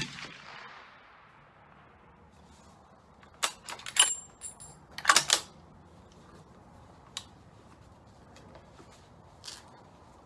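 Bolt of a Ruger American Go Wild .300 Win Mag rifle being worked after a shot: a quick run of sharp metallic clacks about three and a half to five and a half seconds in, with a brief high ring among them, then a couple of faint clicks. The last of a suppressed shot's report fades away in the first second.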